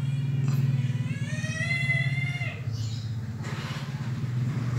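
Homemade contact-breaker (platina) high-voltage shocker running off a 12 V motorcycle battery: its vibrating points buzz steadily as they chop the current through the hand-wound coil. A long high-pitched wavering call rises over the buzz about half a second in and fades after about two seconds.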